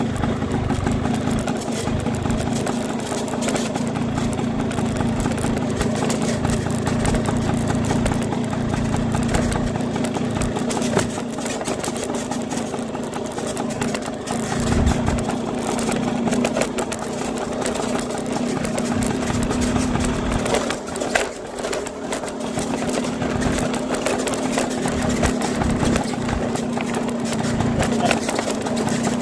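A small engine running steadily with a low hum.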